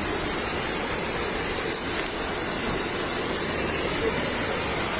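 Steady rushing noise of storm wind and heavy rain from a cyclone, an even wash with no breaks.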